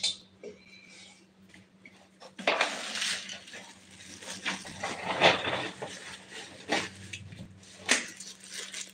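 Kitchen utensils clinking and clattering as they are handled, in irregular knocks and scrapes starting about two and a half seconds in, after a single sharp click at the start.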